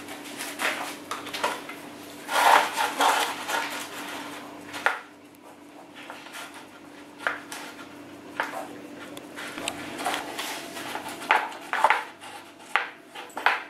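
Puppies nosing and pushing a plastic bowl about on a tiled floor: irregular clacks, knocks and scrapes, with a dense stretch of knocking and rustling about two to four seconds in. A steady low hum runs underneath.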